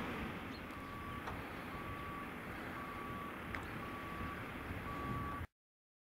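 A reversing alarm beeps about once a second over the steady running of a John Deere 6150R tractor pulling a plough. The sound cuts off abruptly near the end.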